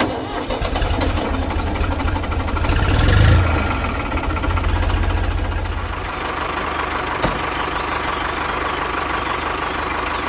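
A truck engine running, building up to a brief peak about three seconds in and then settling to a steady idle.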